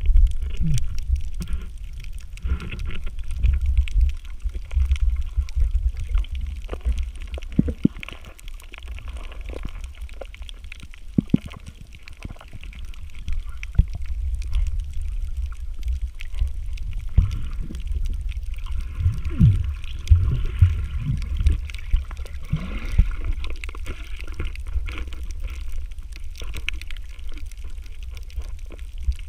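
Underwater sound as picked up by a camera in a waterproof housing while swimming over a coral reef: a steady, muffled low rumble of moving water with gurgles and many short clicks.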